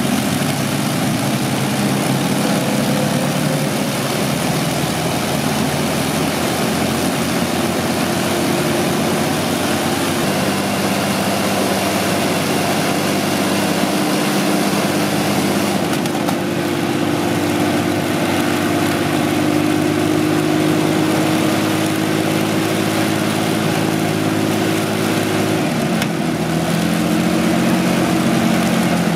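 Two Rolls-Royce Merlin V12 aero engines, a Merlin 500/29 and a Merlin XX, running together on ground trailers with their propellers turning. The engine note is loud and steady, shifting pitch a few times.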